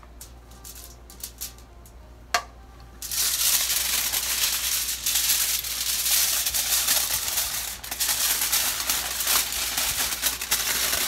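Aluminium foil crinkling and crackling as it is folded into a packet, starting about three seconds in and continuing. Before that, a few light clicks and a single sharp clink of a metal spoon set down against the bowl.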